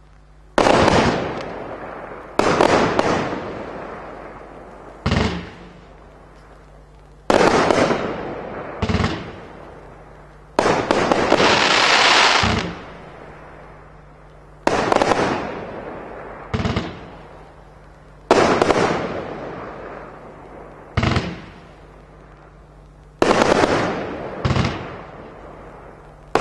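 A 40-shot fanned firework cake with 30 mm tubes firing: sudden loud bangs about every two seconds, some in quick pairs, each fading away over a second or two. Near the middle there is one longer, drawn-out burst.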